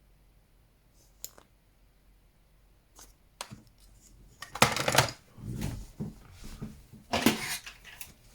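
Small toys being handled: a few light clicks and knocks, then two louder bursts of clattering and rustling, one about five seconds in and one about seven seconds in.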